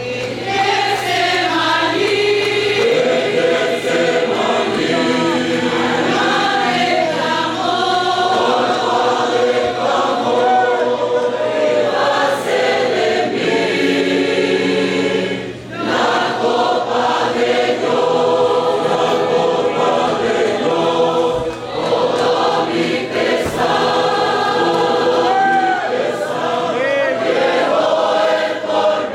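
A choir singing a Spanish-language hymn, many voices together in sustained phrases, with a short break between phrases about halfway through.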